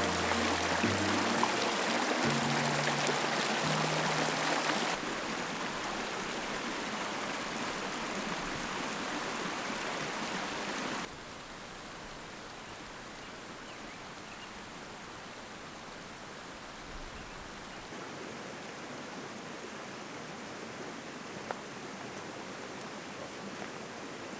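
Small mountain creek rushing and splashing over rocks and logs, with a few low music notes fading out in the first seconds. The water sound drops in level twice, about five and about eleven seconds in, leaving a quieter steady outdoor hiss.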